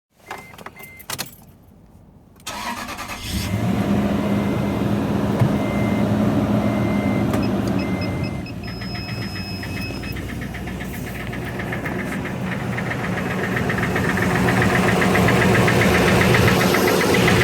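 2006 Toyota Tundra 4.7-litre V8 cranked and started, with a dashboard warning chime beeping, then running with an even, rapid knocking that grows louder toward the end; the cause is unknown to the owner.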